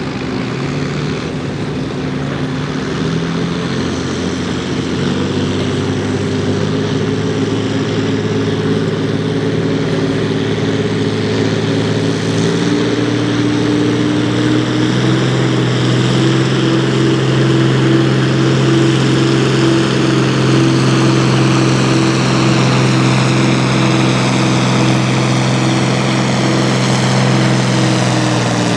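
John Deere 4320's turbocharged six-cylinder diesel working under full load while pulling a sled, a steady engine drone that grows gradually louder. Its note shifts about twelve seconds in and drops away at the very end as the engine is throttled back.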